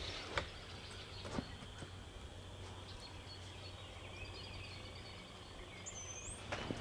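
Quiet outdoor forest ambience with faint bird calls: scattered high chirps in the middle and a short high whistle near the end. Two soft knocks come in the first second and a half.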